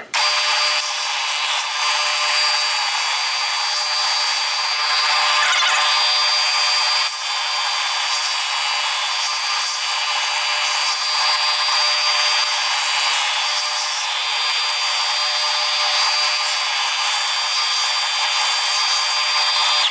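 Benchtop oscillating edge belt sander running steadily, with a constant high whine, while the corners of a wooden board are sanded against the abrasive belt.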